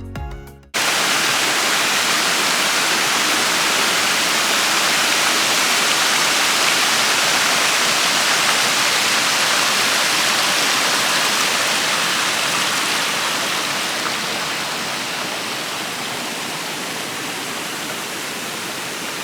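Waterfall rushing steadily, a dense even roar of falling water that eases slightly in level over the second half. Background music cuts off within the first second.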